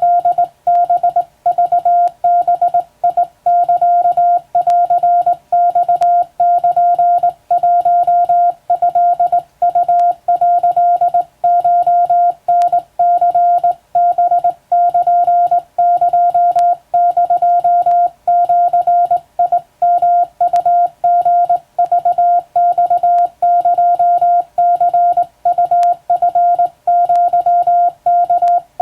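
Hand-keyed Morse code: a single steady beep tone switching on and off in a rapid run of short and long elements, with brief pauses between characters.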